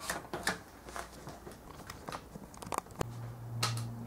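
Scattered light clicks and crackles from hand-turning the bare ZS155 pit bike engine (spark plug out) at its rotor, after checking the valves don't hit the piston. About three seconds in there is a sharp click, and then a steady low hum sets in.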